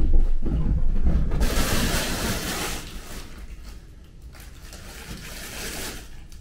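Crinkly fabric of a cat play tunnel rustling as a kitten scrambles into and through it: two stretches of hiss, the first a bit over a second long and louder, the second shorter and softer near the end. A low rumble fills the first second or so.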